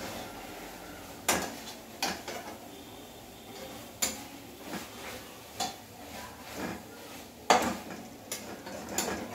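Metal spoon clinking and scraping against a steel cooking pot as the dry soybean bhaji is stirred: a scattered run of sharp clinks and knocks, the loudest about seven and a half seconds in.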